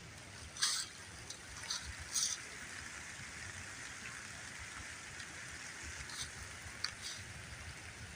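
Steady rain falling, a continuous hiss with a few louder, sharper drips close by.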